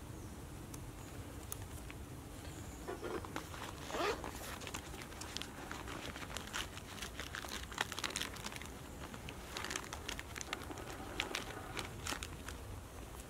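Paper crinkling and rustling with scattered small clicks as a small spiral notebook and pen are handled while the geocache logbook is signed. One louder crinkle comes about four seconds in.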